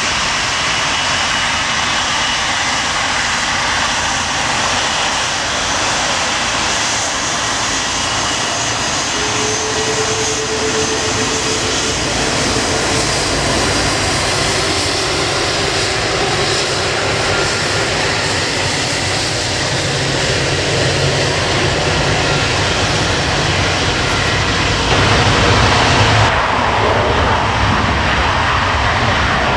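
Airbus A330 airliner's twin jet engines running at taxi power as it rolls past, a loud steady whine and rush. About 25 seconds in the sound grows louder and deeper as the aircraft turns and its engines face the microphone.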